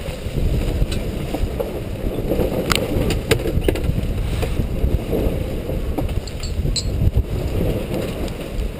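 Wind buffeting the microphone and water rushing past a sailboat under way, a steady low rumble with a few sharp clicks and knocks from gear aboard.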